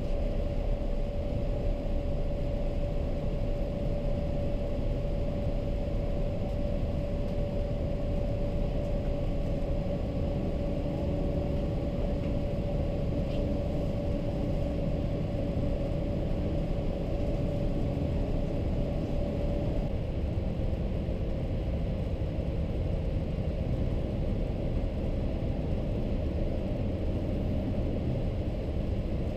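Boeing 787-8 airliner cabin noise heard inside the cabin at a window seat beside the engine: a steady rumble of jet engine and airflow on descent. A steady hum rides on top and fades about twenty seconds in.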